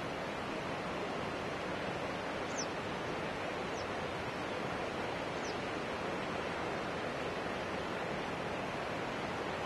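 Steady rushing of a river rapid, even and unbroken, with three faint, short, high-pitched falling chirps.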